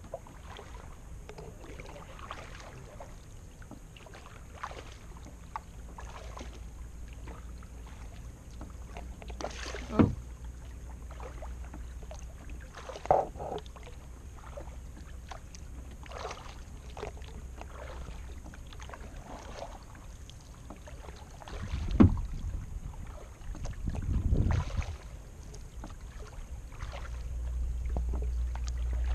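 Kayak paddling on calm water: the paddle blades dip and pull at an uneven rhythm and drip water, with a few louder knocks and splashes about ten seconds in and again past twenty.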